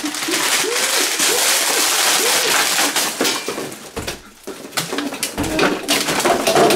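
Plastic candy bag crinkling as it is torn open, with a few short rising-and-falling low hoots over it; then candy packages clicking and knocking as they are pushed into a refrigerator's plastic freezer compartment.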